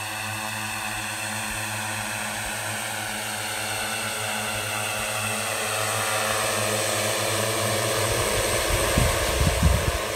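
Multirotor drone's propellers whirring with a steady multi-pitched hum, growing louder as it climbs toward and over the microphone. Gusty low rumbling joins in near the end.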